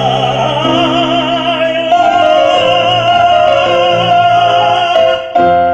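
Operatic-style solo singing with piano accompaniment: the voice holds a long note with a wide vibrato, which cuts off near the end.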